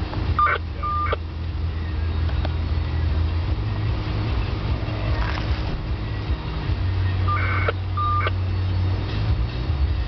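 A steady low rumble of a vehicle in a parking lot, with a short pair of electronic beeps sounding twice, about seven seconds apart, each pair a higher note then a lower one.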